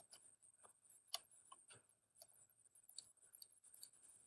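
Faint, irregular clicks of a computer mouse and keyboard, a dozen or so light taps with one slightly louder about a second in.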